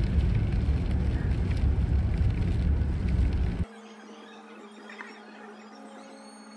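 Steady road rumble and rain noise inside a moving car in wet weather. It cuts off abruptly a little over three seconds in, leaving a much quieter room with a steady low hum.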